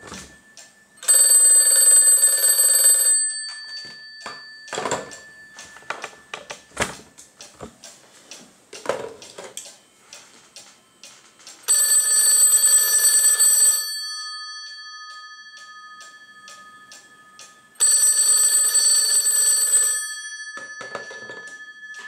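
GTE rotary dial desk phone bells ringing in three bursts of about two seconds each, the gongs humming on and fading after each burst. Small clicks and ticks sound between the rings.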